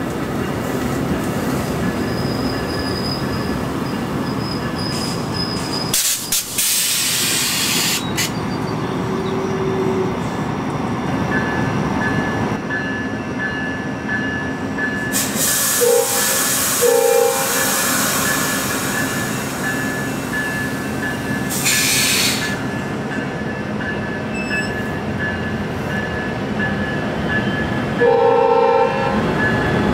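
VIA Rail Siemens Venture passenger coaches rolling past along the rails, with a steady rumble of wheels on track and a faint intermittent wheel squeal. The train horn sounds two short blasts about halfway through and one more near the end.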